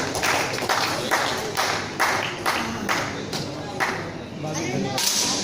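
Spectators clapping together in a steady rhythm, about three claps a second, which fades out about four seconds in, with voices underneath.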